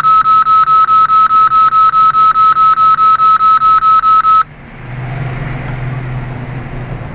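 Mitsubishi Grandy elevator's electronic warning buzzer beeping rapidly on one high pitch, about five beeps a second, as the door closes after the "ドアが閉まります" announcement; it stops about four and a half seconds in. A quieter low steady hum follows.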